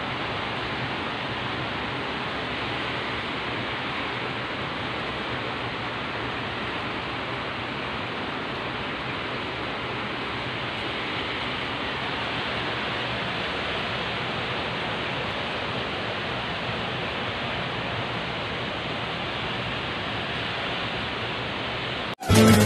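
Heavy rain falling: a steady, even hiss. Just before the end it cuts off suddenly and loud electronic music with a heavy beat starts.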